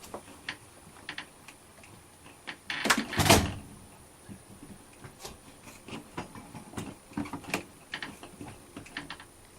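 Hands handling door-lock hardware: scattered light clicks and taps, with one louder rustling knock about three seconds in.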